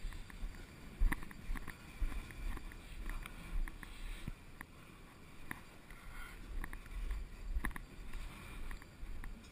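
Footsteps on the perforated steel roof walkways of covered hopper cars: irregular metallic knocks about once or twice a second, over a low rumble of wind on the microphone.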